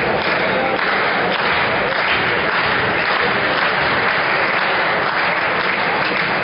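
Crowd of spectators applauding steadily.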